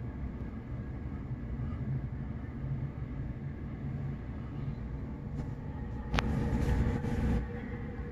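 A steady low rumble. About six seconds in comes a sharp click and then a little over a second of rustling: the camera being handled inside a canvas tent.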